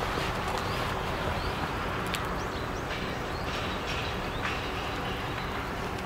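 Steady outdoor background noise, with scattered short high chirps and a couple of sharp clicks.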